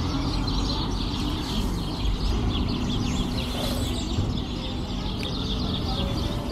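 Many small birds chirping at once, a dense twittering chorus, over a steady low rumble of background noise.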